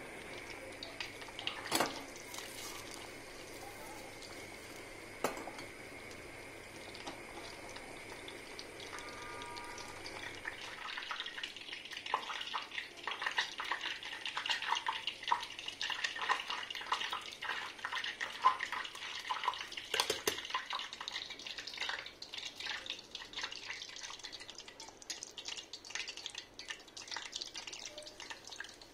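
Butter and oil sizzling and crackling in a small stainless saucepan as they heat for the dried-mint topping. The crackle sets in about a third of the way through. Before that there is a steady hum with a couple of sharp knocks.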